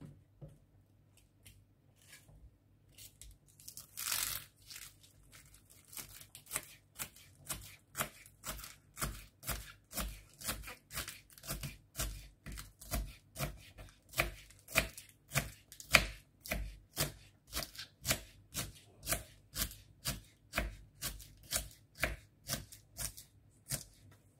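Kitchen knife shredding a lettuce leaf on a wooden cutting board: a steady series of knife strokes knocking on the board, about two a second, faint at first and firmer from a few seconds in.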